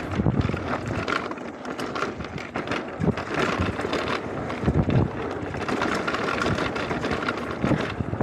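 Mountain bike running down a rocky dirt trail: tyres crunching over gravel, the bike rattling and knocking over bumps, with wind buffeting the microphone.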